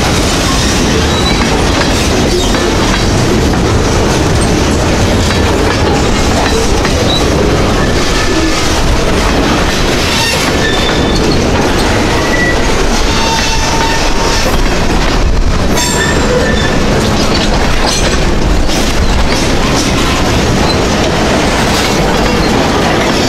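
Freight train boxcars rolling past close by: the steady noise of steel wheels on rail, with clickety-clack over the rail joints and brief high wheel squeals now and then.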